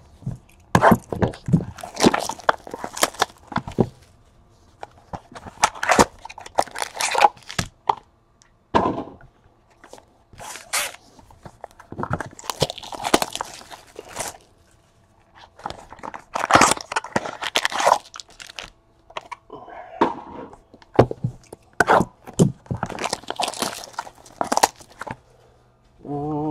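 Cardboard trading-card box packaging being torn open and handled by hand: repeated ripping and crinkling in bursts of a second or two, with short pauses between.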